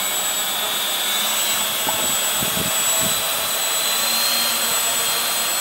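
Walkera Furious 320 quadcopter's brushless motors and propellers spinning steadily while the drone sits on the ground, a high, even whine with an airy rush.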